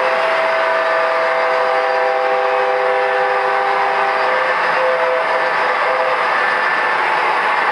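MTH model diesel locomotive's sound system blowing its horn: a long chord that ends about four seconds in, then a short blast and a longer one, over the steady rumble of the model coal train running on the track.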